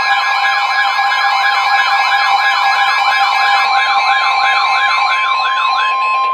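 Emergency alert tones from a weather radio broadcast: two steady high tones with a siren-like warble rising and falling over them, about four sweeps a second and slowing a little. The warble stops just before the end while the upper steady tone runs on a moment longer; the tones signal an emergency alert, here ahead of a severe thunderstorm warning.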